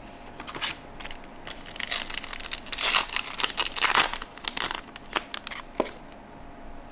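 Foil wrapper of a 2023 Upper Deck Marvel What If...? trading-card pack crinkling in the hands as the pack is opened and the cards are drawn out, in irregular bursts that are loudest about halfway through and die away near the end.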